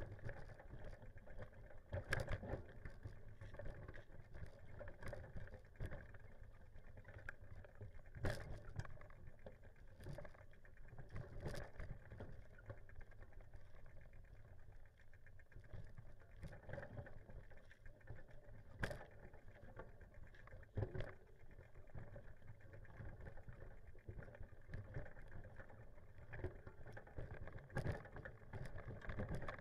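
Bicycle rolling along a gravel road: a steady low rumble of tyres and wind, with several sharp knocks and rattles as the bike jolts over bumps.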